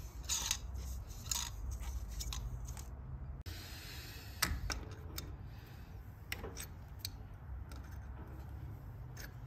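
Yellow gas thread tape being pulled off its roll and wrapped onto a brass gas thread, then a brass cap being screwed on and an adjustable spanner fitted to it, giving a few short light clicks and scrapes.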